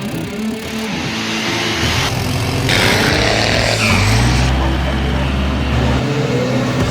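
A vehicle engine running loud and revving, its pitch rising and falling, with a steady low drone for a couple of seconds past the middle.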